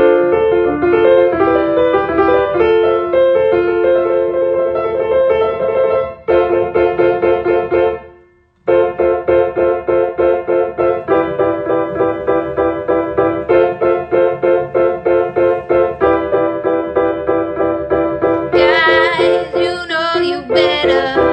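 Keyboard music with held piano-like chords, which stop for a moment about eight seconds in and then carry on. A singing voice comes in over the chords near the end.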